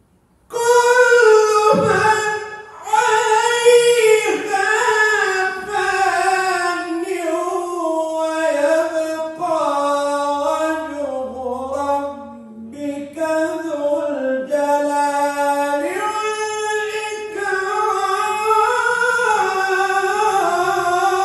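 A man's solo voice chanting the Quran in the slow, melodic mujawwad style. He draws out long held notes that slide gradually down in pitch and climb again near the end, breaking off briefly twice for breath. The voice starts about half a second in.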